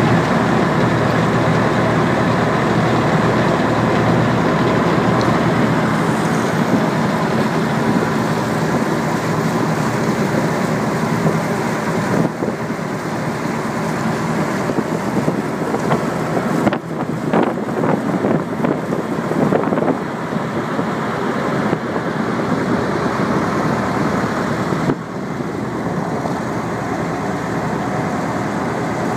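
Towing boat's motor running steadily under load, with water rushing in its wake; the level dips a little about 25 seconds in.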